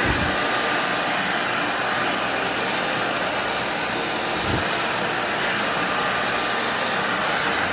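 Electric vacuum cleaner running steadily: a constant rush of air with a thin high whine from the motor.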